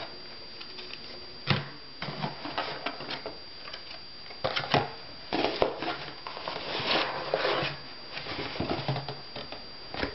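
Cardboard shipping box being rummaged through and blister-packed parts set down on a table: irregular clicks, taps and rustling, with a sharp click about a second and a half in and a busier patch of rustling around the middle.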